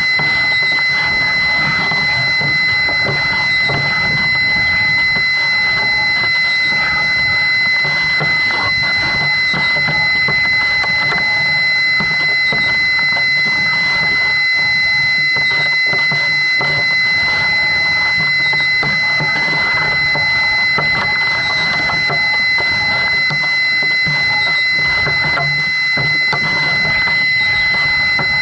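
Wind rushing and buffeting over a rocket's onboard camera as it drifts down under its parachute, with a steady high-pitched electronic tone that does not change.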